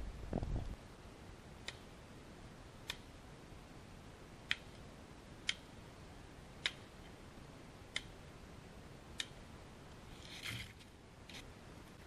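Axe chopping at a small dead tree, sharp knocks about once a second, seven or eight in all. Near the end comes a short rustle of dry branches as the tree is dragged, with a brief swish of underwater water noise at the very start.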